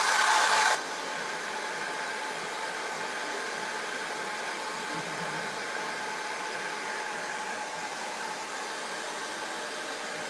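Handheld hair dryer blowing steadily. It drops to a quieter level about a second in and stays steady after that.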